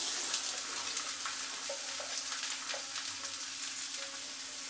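Diced raw carrots dropped into hot mustard oil in a kadhai: a sudden loud sizzle as they land, settling into steady frying with scattered small pops. A faint steady hum runs underneath.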